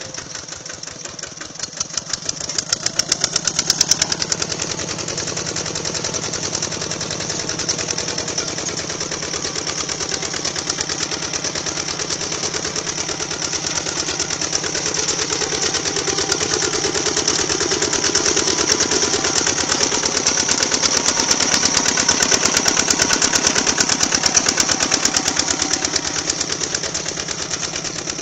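Walking tractor (power tiller) engine running steadily with a rapid, even chug as it pulls a plough through the soil, growing louder a few seconds in.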